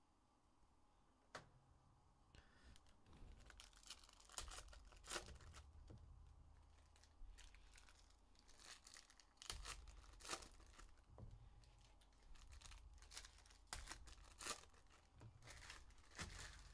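Foil wrapper of a Donruss basketball hobby card pack being torn open and crinkled. It comes as a faint string of short crackles and rustles that begins a few seconds in.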